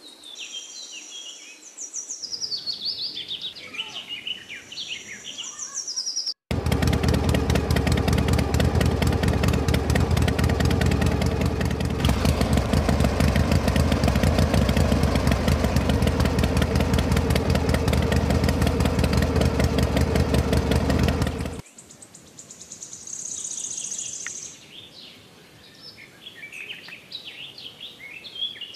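Birds chirping, then about six seconds in a toy's small motor starts abruptly and runs loudly and steadily with a fast rattle for about fifteen seconds before cutting off suddenly; birds chirp again afterwards.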